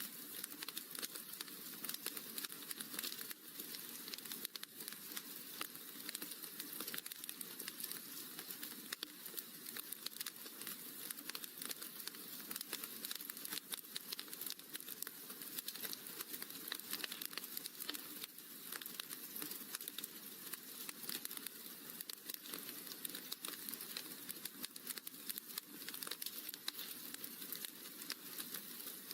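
Wood fire crackling in a fireplace: a dense, continuous run of small pops and snaps over a steady soft hiss.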